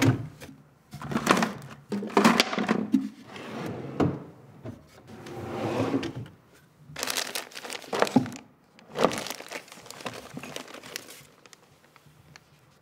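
Rummaging through a wooden desk drawer: irregular bursts of shuffling and crinkling as things inside are moved, with sharp knocks of objects and wood, dying down about eleven seconds in.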